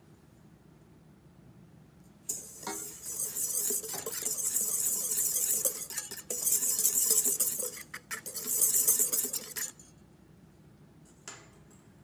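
Wire whisk stirring dry bread flour in a stainless steel bowl, a scratchy rustle with the wires scraping the metal. It starts a couple of seconds in and runs about seven seconds, with two brief pauses.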